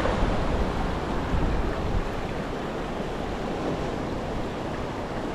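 Ocean surf washing in, with wind noise on the microphone; the wash is loudest at the start and eases to a steady rush.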